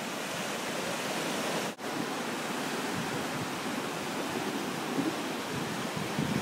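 Small surf breaking and washing up a sandy beach: a steady hiss of moving water. The sound drops out for an instant about two seconds in.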